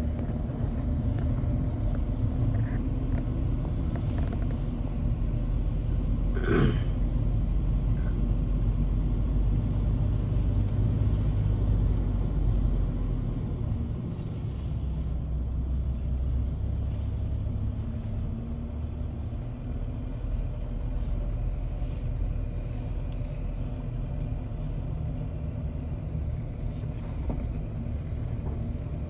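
Car driving at a steady pace, heard from inside the cabin: a continuous low rumble of engine and tyres on the road, easing off a little about halfway through. A brief higher-pitched sound cuts through about six and a half seconds in.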